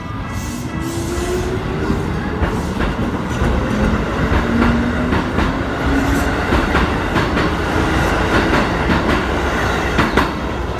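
Keikyu Daishi Line electric train passing over the level crossing, its wheels clacking over the rail joints. Above the clacking, a whine rises slowly in pitch twice.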